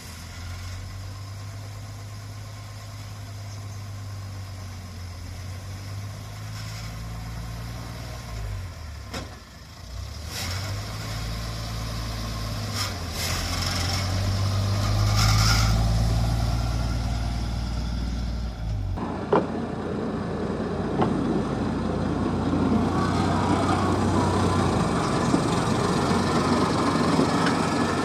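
The engine of a TMC100F track motor car runs, its low note stepping up and down as it revs. About two-thirds of the way in, the engine note fades and a steady rolling noise of the car running on the rails takes over, with a couple of sharp clicks.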